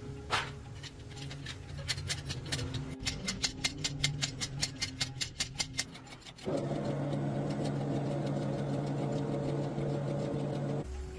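A run of sharp, evenly spaced clicks, about five a second, then a motor running steadily for about four seconds before cutting off suddenly.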